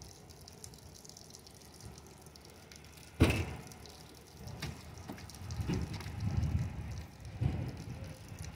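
One sharp knock about three seconds in, then a run of dull wet thumps and sloshing as fish and gear are handled inside an aluminium boat. Light rain hisses underneath.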